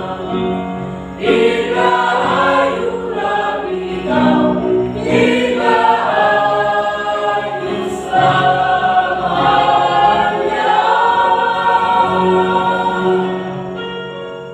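Mixed choir of men and women singing together in chords, with the sound tailing off near the end.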